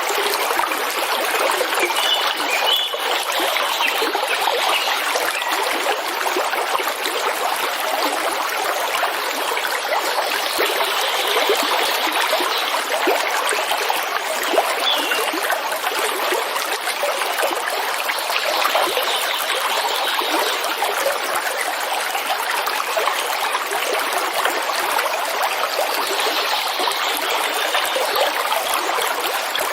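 Waterfall: a steady, unbroken rush of falling and running water.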